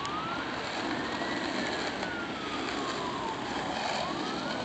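Skateboard wheels rolling steadily over asphalt. A faint siren wails slowly up and down in the background.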